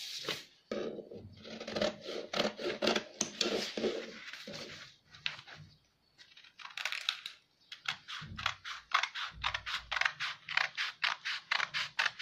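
Scissors cutting through pattern paper: a series of crisp snips and paper crackle, pausing briefly about halfway, then a quick even run of several snips a second.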